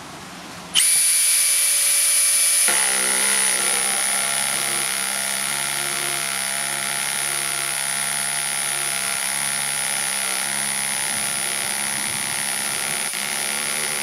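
Makita HP002G 40V XGT cordless hammer drill starting suddenly about a second in and running steadily with a high whine, driving a 100 mm batten screw on its highest clutch setting. Its note changes about two seconds later and then holds steady under load.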